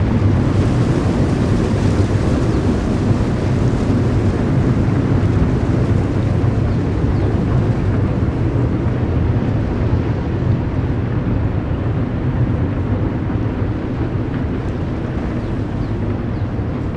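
Low, steady engine rumble of the LNG-powered container ship Containerships Polar passing close by, slowly fading as the ship moves away.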